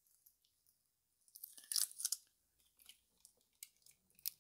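Light clicks and scrapes of the BMW N42's Valvetronic bracket assembly being handled and set down onto the cylinder head, with a short louder scraping clatter a little under two seconds in and a few scattered ticks after it.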